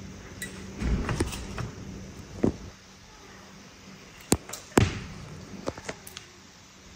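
Green cardamom pods being cracked open between the fingers: a scattering of sharp clicks and light knocks, the strongest two about half a second apart after about four seconds.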